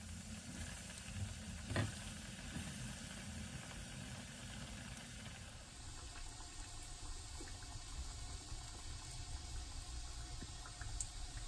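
Hot oil sizzling and bubbling steadily in a deep-frying pan, with a single knock about two seconds in.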